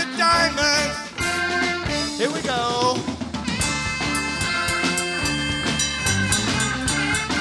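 A rock band playing live: bass, guitars and a drum kit, with a sung line over the top that gives way about three seconds in to held chords over a steady drum beat.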